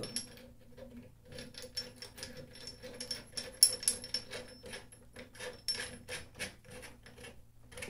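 A metal socket heating die being worked onto the heater plate of a PPR pipe fusion welder: a tight fit, giving an irregular run of small metal clicks, taps and scrapes. The sharpest click, about three and a half seconds in, rings briefly.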